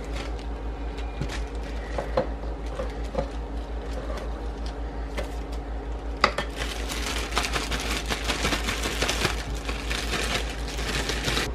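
Plastic baggie crinkling and rustling as cubed tofu is tossed in it with cornstarch: scattered small taps and clicks at first, then steadier shaking from about six seconds in. A steady low hum sits underneath.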